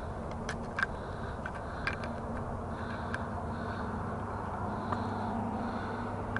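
Light clicks and taps as small metal parts, including a carabiner, are handled at the mower, over steady outdoor background noise with a faint low hum.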